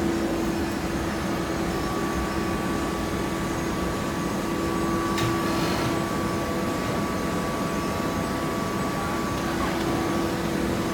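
Hydraulic baling press running: a steady machine hum carrying a constant low tone, with a higher steady whine joining about a second in and a single sharp click about five seconds in.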